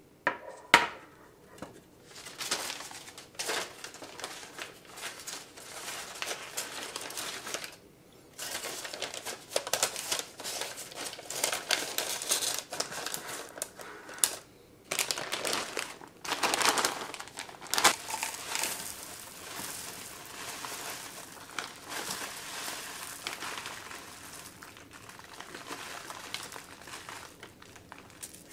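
Parchment paper rustling and crinkling as it is handled, folded and pressed into a square metal cake pan, in irregular bursts with a couple of short pauses. A sharp knock just under a second in is the loudest sound.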